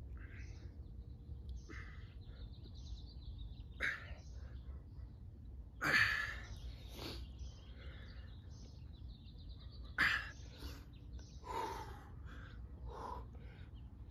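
A man breathing hard with each push-up: about six sharp, forceful exhalations spread over the stretch, the strongest about six and ten seconds in. Small birds chirp and trill throughout over a steady low rumble.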